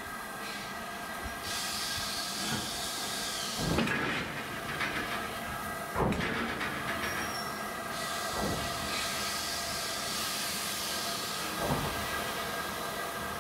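LMS Black 5 steam locomotive standing in steam, hissing steadily, with a few heavy clunks spaced two to three seconds apart.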